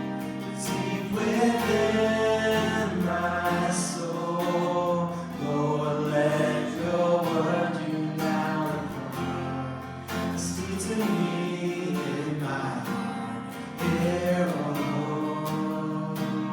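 Congregation and worship singers singing a gospel worship song, accompanied by strummed guitar.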